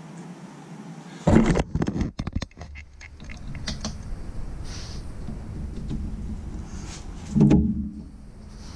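Handling noise of metal bolts and suspension hardware being worked by hand: a loud knock about a second in, a quick run of clicks and rattles, steady rustling, and another loud knock near the end.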